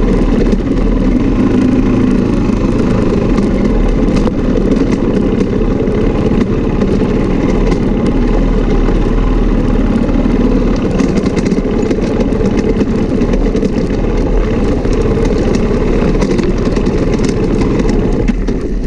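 Off-road motorcycle engine running steadily while riding, with a few faint clicks.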